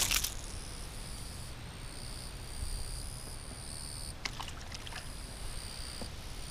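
Small pike being let go at a river's edge: light splashing and handling noises, with a short burst right at the start and a few small clicks and splashes about four seconds in. Underneath runs a low wind rumble on the microphone, and a high buzz comes and goes in the background.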